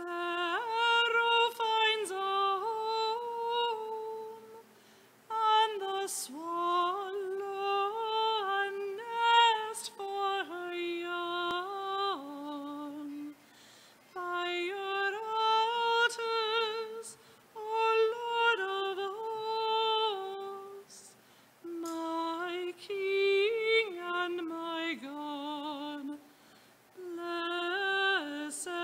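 A solo woman's voice singing a communion hymn without accompaniment, in phrases of a few seconds with short breaths between them.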